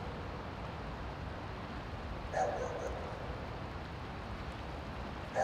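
River water rushing steadily over rapids and a small waterfall. About two and a half seconds in, a brief animal call of three or four quick pulses sounds over it.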